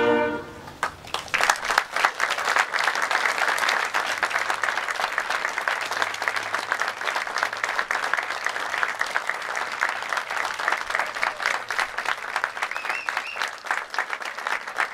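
A school concert band's final held chord cuts off about half a second in, and the audience breaks into applause that carries on steadily.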